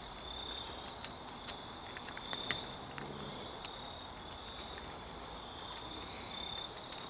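Faint, steady, high-pitched insect trill that swells briefly every few seconds, with a few soft scattered clicks.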